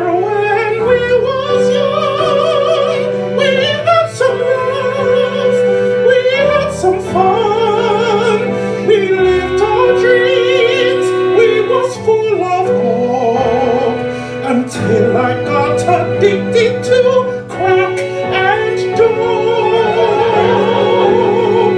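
Solo singing in operatic musical-theatre style: a single voice holds long notes with wide vibrato over sustained accompaniment chords.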